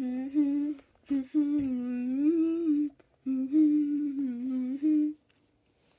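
A child humming a tune with closed lips, in three phrases with short breaks, stopping about five seconds in.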